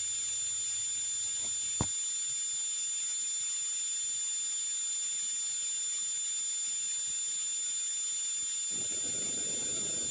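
A steady high-pitched whine with hiss, with one sharp click about two seconds in and a soft low rustle starting near the end.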